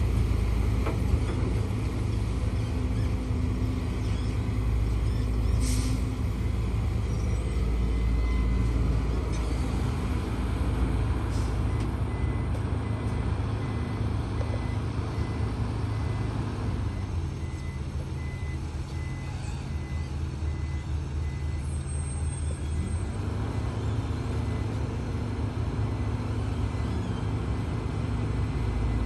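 Heavy diesel engine of a HIDROMEK HMK230LC excavator running steadily at work. From about twelve seconds in, a reversing alarm beeps at one pitch about twice a second for roughly ten seconds.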